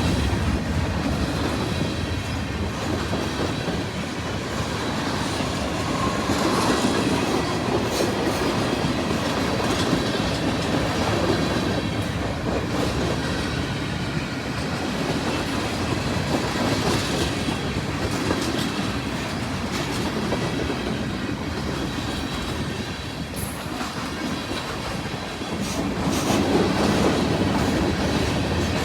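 A CSX mixed freight train's cars rolling past: a steady rumble of steel wheels on rail, with repeated clicks as the wheels cross rail joints.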